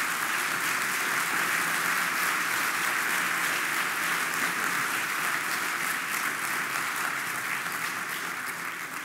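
Audience applauding in a large hall, a steady wash of clapping that begins to die away near the end.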